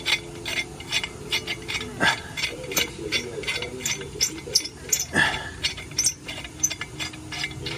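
Flex-head ratcheting wrench clicking steadily, about three clicks a second, as it turns a 17 mm nut off a catalytic converter's exhaust flange bolt.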